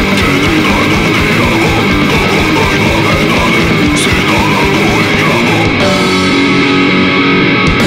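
Loud, fast hardcore punk: distorted electric guitars over rapid drumming, with no vocals. Near the end the drums drop out and the guitar chords ring on alone for about two seconds.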